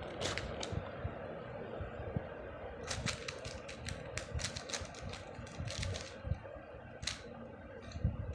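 Hands handling a new Rubik's cube and its plastic packaging while opening it: sharp plastic clicks and crackles, a couple near the start, a quick run of them about three seconds in, and a single one near the end.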